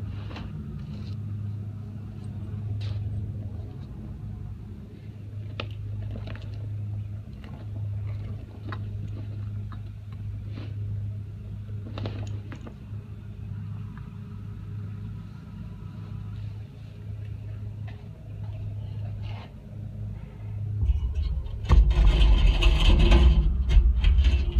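Heavy PVC fabric of an inflatable boat crinkling and rustling in short bursts as it is pulled and unfolded, over a steady low hum. About 21 seconds in, a loud rushing rumble takes over for a few seconds.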